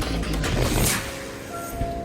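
Music with held notes and a repeating low pulse, and a rushing noise that swells and fades in the first second.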